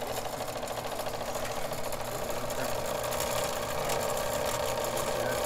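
Electric line-spooling machine running, spinning a reel spool as it winds braided line onto it over monofilament backing; a steady motor whir that builds slightly.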